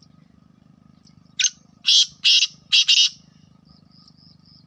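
Black francolin calling: one short note, then a quick run of four loud, harsh, grating notes. A steady low hum runs underneath.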